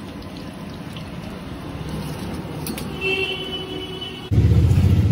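Street traffic background, then about four seconds in a vehicle engine close by starts a loud, low, fast-pulsing rumble.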